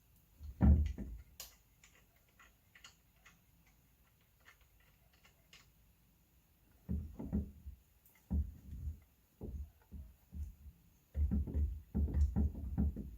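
A single low thump about a second in and a few light clicks, then background music with a low, pulsing beat from about seven seconds in.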